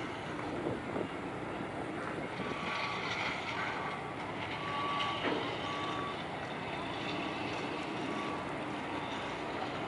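Fishing trawler's diesel engine running steadily as it moves slowly through the lock, with a high electronic beep repeating about once every second from about two seconds in, and a single knock around the middle.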